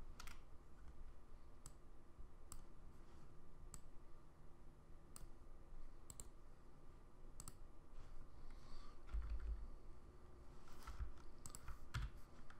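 Faint computer mouse clicks, single and irregular, about one every second or two, coming more quickly near the end, with a low thump or two.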